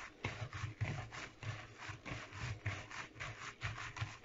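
Hands in disposable gloves kneading and slapping minced meat in a plastic bowl: a rhythmic run of rubbing strokes, each with a soft thud, about three to four a second.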